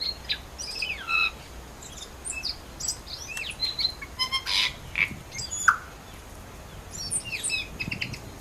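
Several small birds chirping and twittering in short, high calls that overlap irregularly, with a harsh, buzzy note about halfway through.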